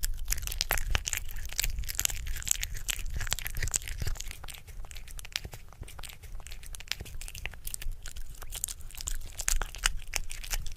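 A kitten chewing chunks of beef from a bowl: a dense, irregular stream of quick wet clicks and smacks from its mouth.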